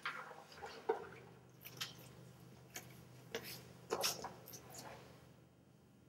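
Faint, irregular soft clicks and knocks of a person moving about, footsteps and clothing rustle, over a low steady hum.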